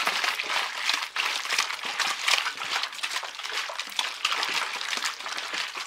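Sugared water and lemon juice sloshing inside a 1.5-litre plastic bottle as it is shaken to mix, a continuous irregular splashing.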